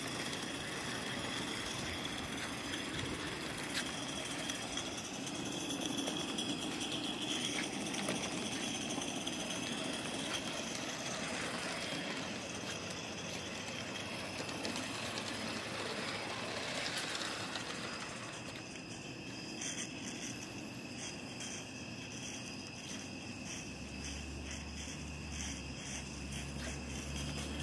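Live-steam Forney model locomotive running on its track: a steady hiss of steam with light mechanical rattling. The sound thins out about two-thirds through, and a low hum comes in near the end.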